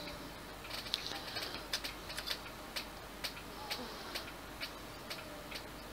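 Light, irregular clicks, two or three a second, as metal multimeter test-probe tips tap and scrape against the solder points of a power-supply circuit board.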